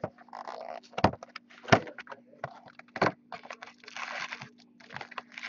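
Cardboard trading-card hobby box being handled and opened by hand: cardboard rustling and tearing, with three sharp knocks against the table, over a faint steady hum.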